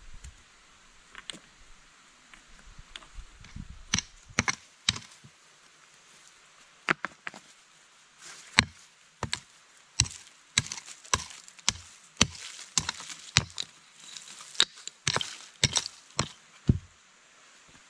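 Short-handled hand tool chopping into soil and stones, a series of sharp irregular strikes about one or two a second that begins a few seconds in.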